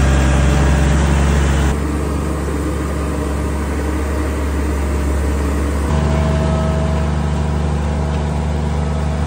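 Tractor engine running steadily, its sound shifting abruptly twice.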